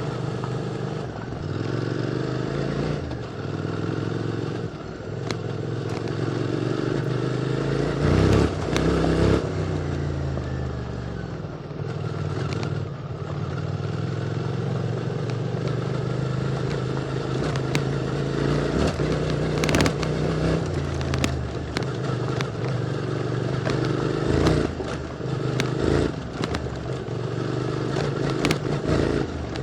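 QJ Motor SVT650X parallel-twin engine running through an Arrow slip-on exhaust while riding a stony dirt road, its note rising and falling with the throttle. Loose stones clatter and knock sharply under the tyres now and then.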